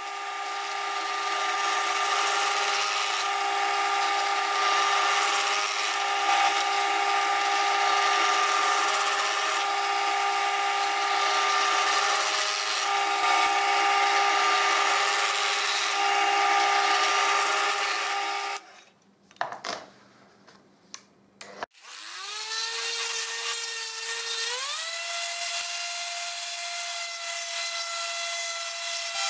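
A pillar drill press running with a steady motor whine while its bit drills holes in a wooden block. It stops about two-thirds of the way in; after a short quiet gap with a few clicks, a random orbital sander starts, its whine rising in two steps and then holding steady as it sands the wooden block.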